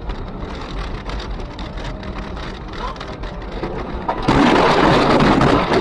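Car driving through snow, its engine and tyres making a steady low rumble. About four seconds in, a loud rush of noise lasting a second and a half as the car ploughs into deep snow and snow sprays over the windscreen.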